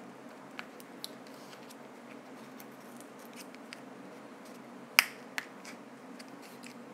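Scattered small clicks and taps of hand tools on a game console's circuit board during desoldering, with one sharp click about five seconds in and a lighter one just after, over a steady low hum.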